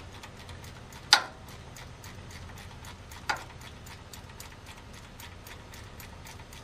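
Hand ratchet clicking steadily, several quick clicks a second, as the last starter mounting bolt is wrenched out. Two sharper metallic clicks stand out, about a second in and again about three seconds in.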